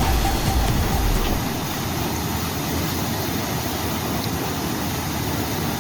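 Waterfall pouring: a steady, even rush of falling water, with a low rumble over the first second or so.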